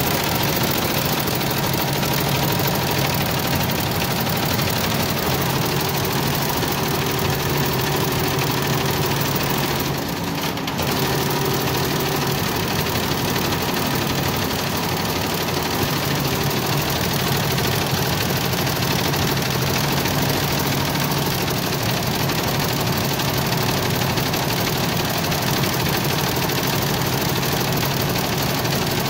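Computerized multi-needle embroidery machine stitching, a steady mechanical running with a constant hum, briefly dipping about ten seconds in.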